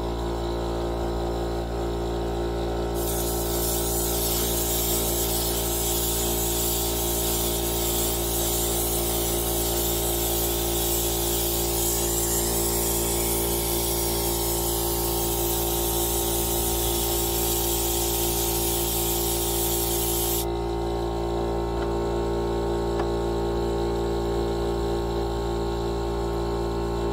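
Air-powered siphon spray gun spraying glaze, a steady hiss of air and atomised glaze that starts about three seconds in and cuts off about seven seconds before the end. Under it runs a steady droning hum throughout.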